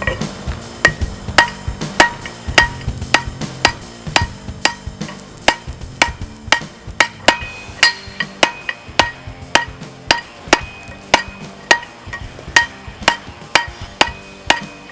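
Hand hammer forging steel on an anvil: steady blows a little under two a second, each with a bright metallic ring. Background music with low held notes plays underneath.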